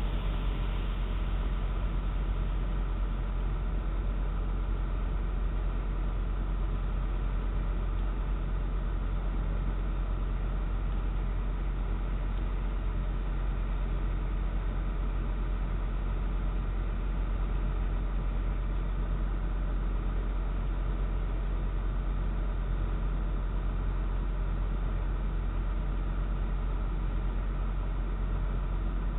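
Steady low hum and hiss through a doorbell camera's narrow-band microphone, unchanging throughout.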